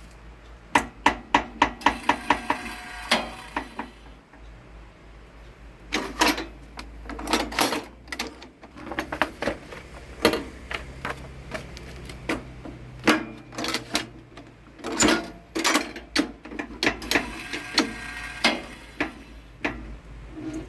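Irregular knocks and clacks from working a semi-automatic hot-melt glue book-binding machine and handling the paper in it. About a second in there is a quick run of six or seven knocks. A low hum runs underneath.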